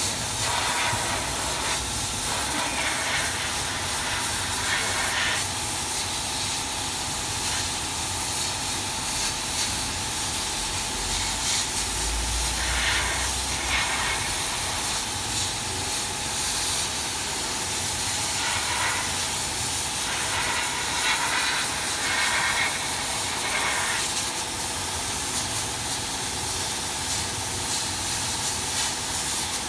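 CO2 laser fabric-cutting machine at work: a steady hiss with a constant hum underneath, and short louder bursts now and then.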